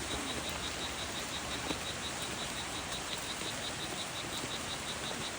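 A high-pitched insect call pulsing evenly, about seven pulses a second, over a steady hiss of forest background noise.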